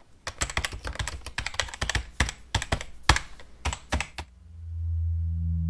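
Sound effects of a closing logo sting: a quick, irregular run of clicks for about four seconds, then a low, steady humming drone swells in near the end.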